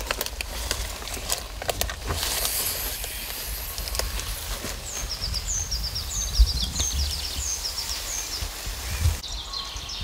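Forest-floor ambience: dry leaf litter rustling and twigs clicking over a low rumble of wind or handling on the microphone. From about halfway, a songbird repeats a phrase of short, high, falling notes.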